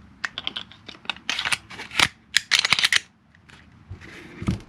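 A Glock 19 pistol and its slide lock being handled: a quick run of sharp metal clicks and scrapes, thinning out after about three seconds, with a few lighter clicks near the end.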